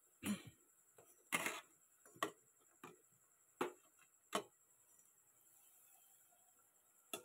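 A handful of sharp, irregular clicks and knocks, about six in the first four and a half seconds with the second the loudest, then near quiet with another click at the end.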